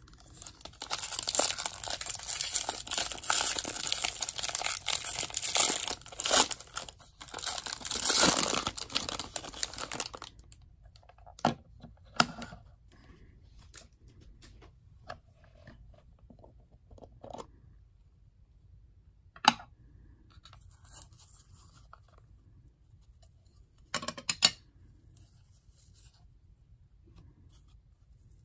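Trading-card pack wrapper torn open and crinkled for about nine seconds, then a few scattered sharp clicks and taps as the cards and a plastic top loader are handled.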